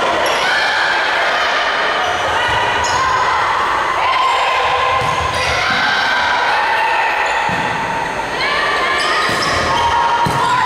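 Volleyball rally on a hardwood gym court: the ball struck a few times, ringing in the hall, with players' voices.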